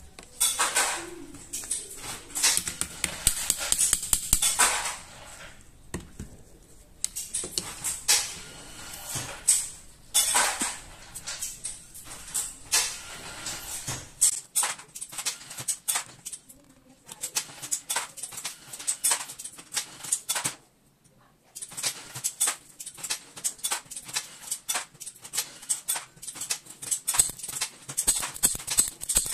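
Irregular clicks, scrapes and rattles of metal pistol parts on a Jericho 941 frame being handled and worked during disassembly, with a couple of short quiet gaps.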